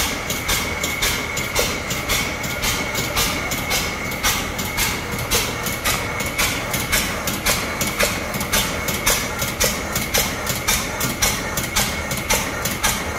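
Fairbanks-Morse Model T 4 hp hit-and-miss engine running, with an even, sharp clacking about three times a second.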